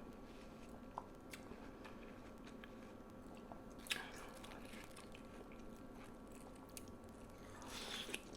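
Close-miked chewing of juicy watermelon: soft wet mouth clicks, a sharp crunchy bite about four seconds in, and louder crisp, juicy chewing near the end.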